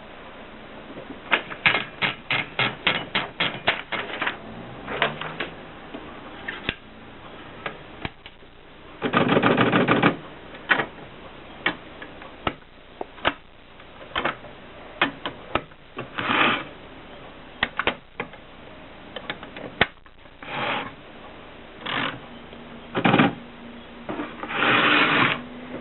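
Mercedes Selekta typewriter being typed on: a quick run of key strikes, then scattered single strikes and a few longer clattering bursts of the mechanism, the longest about a third of the way in and near the end.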